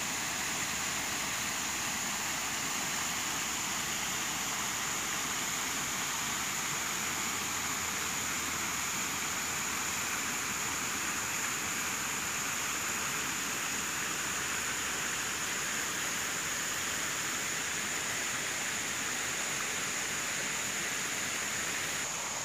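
Shallow stream running over stones: a steady rushing of water, with a constant high-pitched whine above it.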